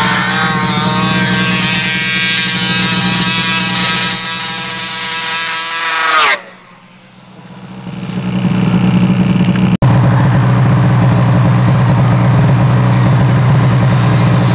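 Two-stroke snowmobile engines running hard at high revs as the sleds race along the trail: a 1998 Ski-Doo Mach 1 700 and a 1999 Polaris XCR 800, both with loud pipes. The sound drops off abruptly about six seconds in, builds again, and is back at full loudness from about ten seconds on.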